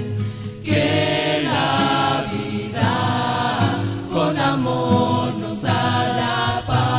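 A choir singing a devotional song together, several voices with musical accompaniment and a steady low tone beneath.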